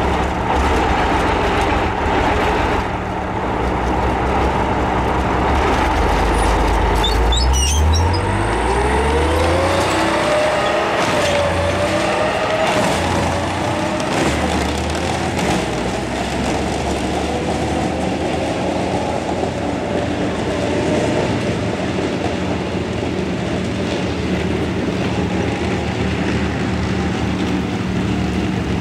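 Chieftain tank's Leyland L60 two-stroke multi-fuel engine running loud under the throttle as the tank moves off. About eight seconds in, the engine note climbs in steps while a whine rises with it, and the engine then runs on steadily as the tank draws away.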